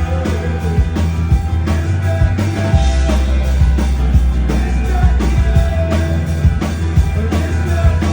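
A live rock band playing loudly, with sustained bass notes under regular drum hits and a melodic line above.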